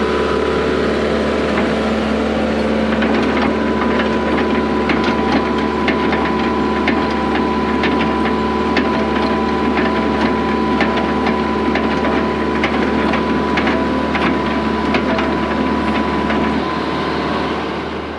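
The engine of heavy equipment runs steadily under load while it pulls a water line plow through the ground, with irregular clicks and knocks throughout. The engine eases off near the end.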